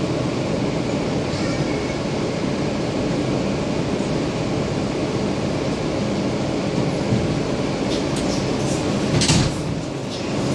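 R160B Siemens subway car getting under way and running along the track, heard from inside: a steady rumble of wheels and motors, with a short, sharp louder noise about nine seconds in.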